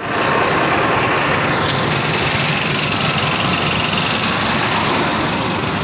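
Semi-truck diesel engine idling steadily, heard close up.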